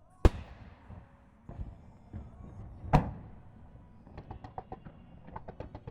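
Aerial firework shells bursting: two loud booms about two and a half seconds apart with lighter thuds between them, then a quick run of sharp crackling pops from about four seconds in.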